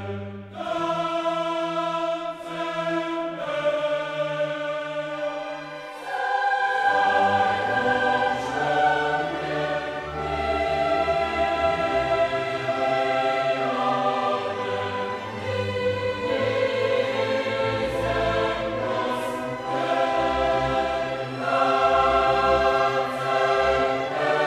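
Choral music: a choir singing long held chords, with a deeper, fuller accompaniment joining about six seconds in.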